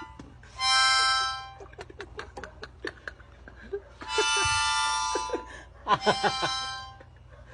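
Harmonica played in long held chords: one about half a second in, a second around four seconds in, and a shorter wavering one near six seconds, with small clicks in between.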